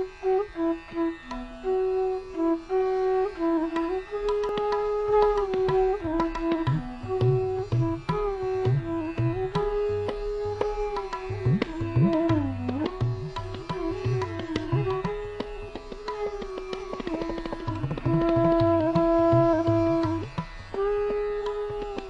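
Instrumental background music in an Indian classical style: a melody with gliding, bending notes, joined about six seconds in by low hand-drum strokes.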